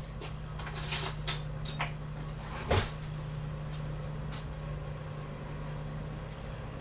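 A wrapper crinkling as it is handled, in a few short crinkles about a second in and once more near the three-second mark, over a steady low hum.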